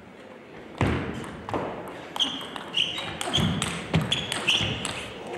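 Table tennis rally: the ball clicks in quick succession off the bats and table, starting about a second in after a short quiet pause. Shoes squeak short and high and thud on the court floor as the players move.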